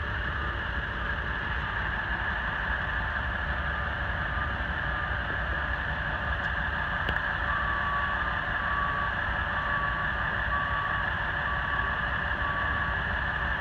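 Heavy-duty tow trucks idling together, with a vehicle's reverse backup alarm beeping steadily at about two beeps a second as a truck backs up. The beeping gets louder from about halfway through.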